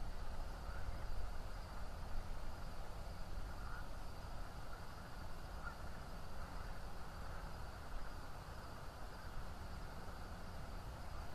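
Steady outdoor night ambience picked up by a nest-cam microphone: a low rumble and hiss, with a few faint short chirps.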